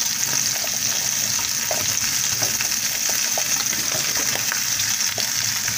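Beef steaks and freshly added raw onion slices sizzling in hot oil in a frying pan: a steady hiss with scattered small crackles.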